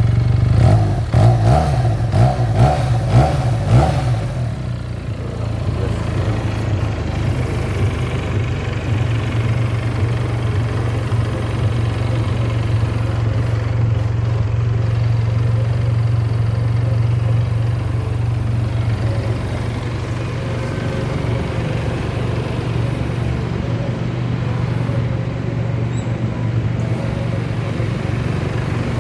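Benelli TNT 302S motorcycle's 300cc parallel-twin engine on its stock exhaust, blipped about six times in quick succession over the first four seconds, then settling into a steady idle.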